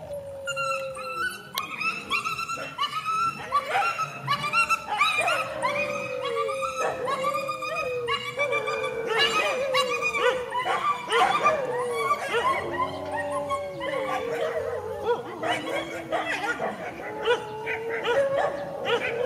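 Several dogs fighting, with a continual run of overlapping high yelps and whines and some barks.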